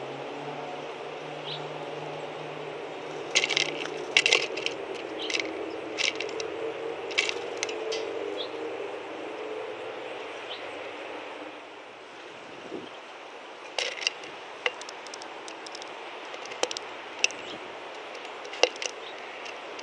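Sharp, irregular clicks and taps of small birds pecking at and handling seeds on a wooden feeder tray, in two bursts: a white-breasted nuthatch in the first half and a tufted titmouse in the second. A low steady engine rumble lies under the first half and fades out about twelve seconds in.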